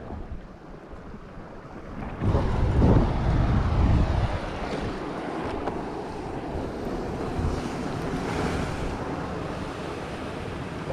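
Wind buffeting the action camera's microphone over surf washing against a rocky shore; the rush jumps suddenly louder about two seconds in, with heavy low buffeting for a couple of seconds, then settles into a steady roar.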